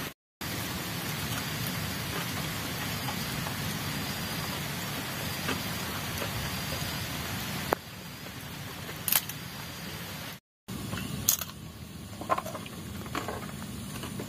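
Steady hiss of light drizzle falling, dropping to a softer hiss about eight seconds in, broken by two brief gaps of silence, with a few faint clicks and taps.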